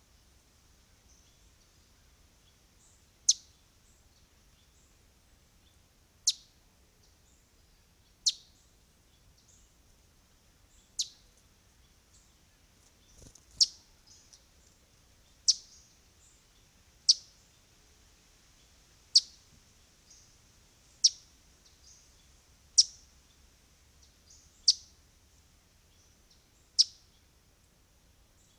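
A bird repeating a single short, sharp, high call note about a dozen times, the notes coming every two to three seconds and a little closer together later on.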